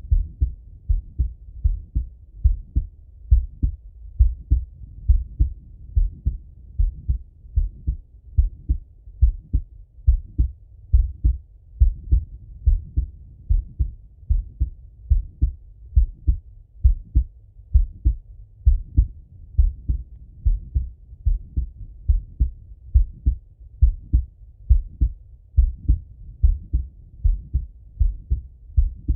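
A man's heartbeat heard through a Littmann stethoscope: a steady, regular lub-dub of muffled low thumps in close pairs, with nothing above the low range.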